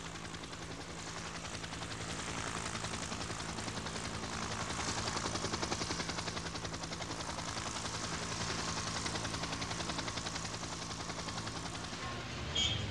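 Helicopter in flight: the rotor blades beat in a rapid, steady pulse over the steady hum of the engine.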